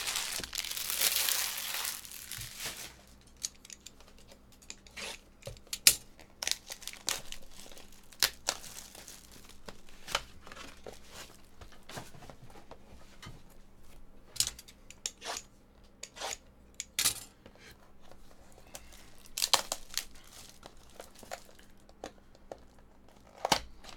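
Clear plastic shrink wrap being torn off a boxed set of trading cards and crinkled in the hands. A loud, noisy tear in the first two seconds or so, then scattered crackles and small taps of the wrap and cardboard.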